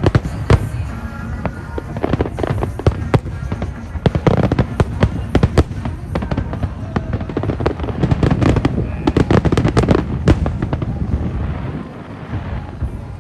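Fireworks going off in a rapid, irregular barrage of bangs and crackles, thinning out near the end.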